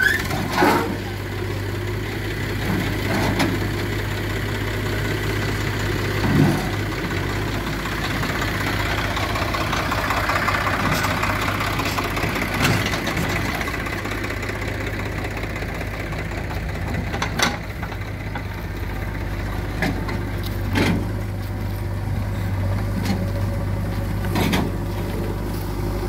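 JCB 3DX backhoe loader's diesel engine running steadily while the backhoe works a large log, with a few short knocks scattered through it.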